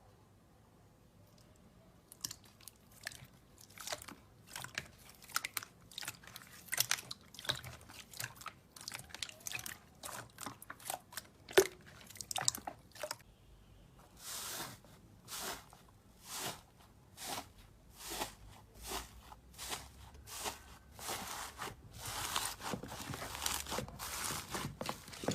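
Slime being squeezed and pressed by hand, making a quick irregular run of crisp clicks and crackling pops that starts about two seconds in.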